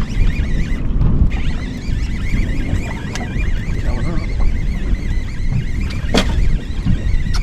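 Wind buffeting the microphone on a small boat, with a steady low rumble. A thin high warbling squeal wavers through it, and there is one sharp click a little after six seconds in.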